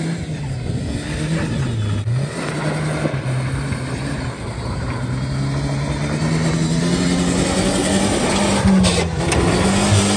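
Ford Ranger pickup's engine running under throttle as the truck drives across rough ground. Its pitch dips about two seconds in, then climbs steadily and grows louder toward the end as the truck comes close.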